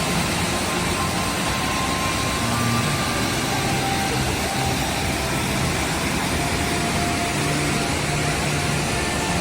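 Waterfall rushing steadily: a clear mountain stream dropping about 12 metres into a pool.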